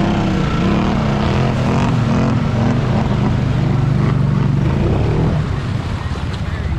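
Honda ATV engines running and revving, the engine note rising and falling, then easing off near the end.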